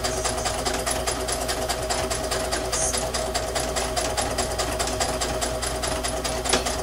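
Electric sewing machine stitching a seam through fabric strips at a steady speed: rapid, even needle ticking over a steady motor hum.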